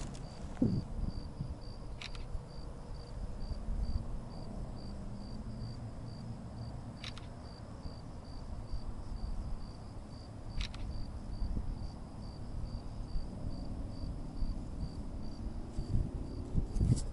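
A cricket chirping steadily, a little under three short high chirps a second, over a low rumble on the microphone and a few faint clicks.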